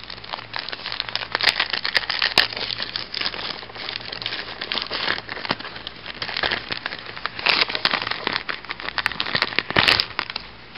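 Clear plastic packaging sleeve crinkling and crackling as it is handled, in an irregular stream, with louder bursts about two seconds in, around seven and a half seconds, and near the end.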